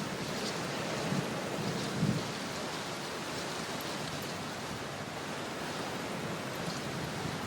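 Light rain falling steadily on window glass, an even hiss with faint scattered drop ticks. A brief low thump about two seconds in.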